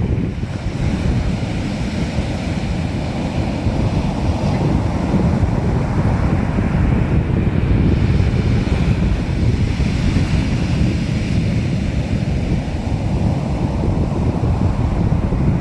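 Sea surf: waves breaking and washing continuously, swelling and easing, with wind rumbling on the microphone.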